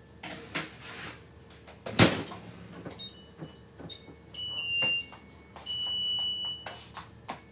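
Kitchen clatter of pans and utensils being set down, with one loud knock about two seconds in. After that, a high electronic beep sounds repeatedly, each beep lasting under a second, like an alarm or appliance signal.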